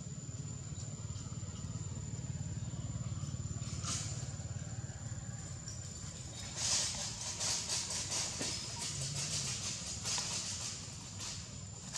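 Outdoor ambience: a steady low rumble and a thin, steady high whine. About halfway through comes a run of quick rustling clicks lasting several seconds.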